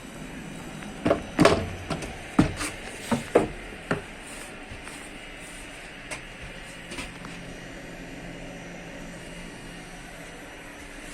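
A run of sharp knocks and thumps in the first four seconds inside the passenger car of a Stadler FLIRT3 electric multiple unit, then the steady low hum of the train's onboard equipment.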